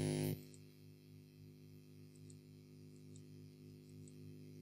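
Steady electrical mains hum on the microphone cuts off abruptly a moment in, leaving near silence broken by a few faint, sharp clicks of a computer mouse.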